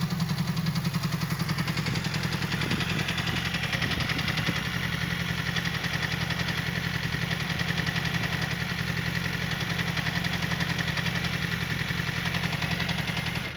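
Yamaha R6's inline four-cylinder engine idling steadily, with the clutch basket knocking and rattling. This is the sign of play in the worn clutch basket. The sound stops abruptly near the end.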